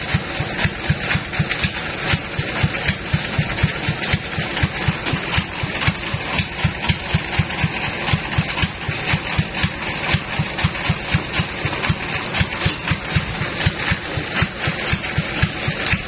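Diesel engine driving a sawmill band saw, running steadily with a regular thudding pulse about three times a second while the blade is not cutting.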